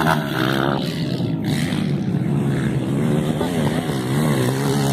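Motocross dirt bike engines running and revving as the bikes ride by on a dirt track, pitch rising and falling with the throttle.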